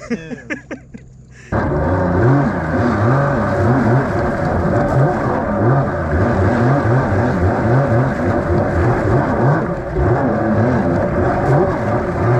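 Stand-up jet ski engine running under throttle, its pitch rising and falling, with water and wind noise. It starts abruptly about a second and a half in.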